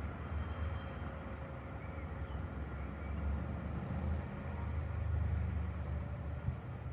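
Low, steady rumble of distant city traffic and trams, swelling about three seconds in and easing off near the end.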